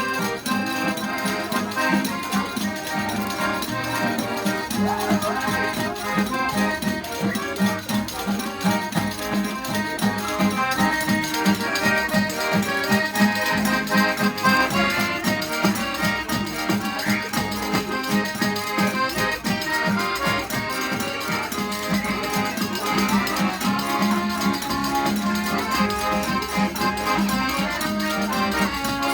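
Accordion (gaita) playing a fast vaneirão, the dance rhythm of southern Brazil's gaúcho music, with a steady pulsing bass and a busy melody over it.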